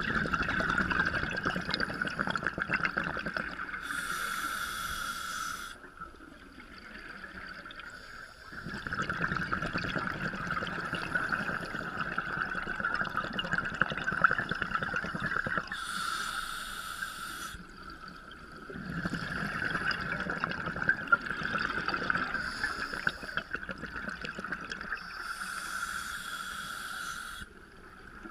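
Scuba regulator breathing underwater: exhaled air bubbling out in three long stretches of several seconds each, with a short high hiss near the end of each and quieter pauses between.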